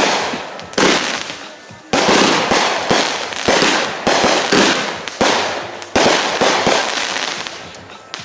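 Rapid series of consumer aerial firework bursts, about ten sharp bangs in eight seconds, each trailing off into crackle, fading away near the end.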